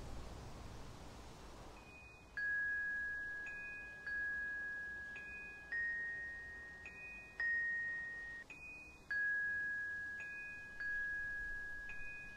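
Soft film-score music on a bell-like mallet instrument such as a glockenspiel, starting about two seconds in. It plays a slow repeating figure of note pairs, a short higher note then a lower one that rings out, about every second and a half.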